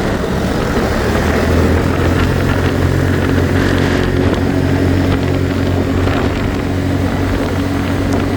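ATV engine running at steady revs, its pitch holding level throughout.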